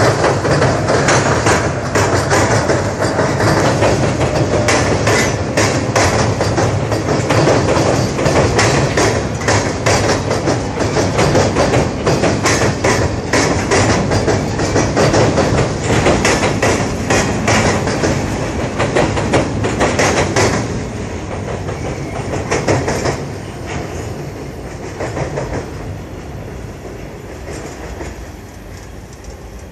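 Freight cars rolling across a trestle bridge: steel wheels clacking and clicking over the rail joints, loud and steady. The sound drops about twenty seconds in and fades as the end of the train moves away.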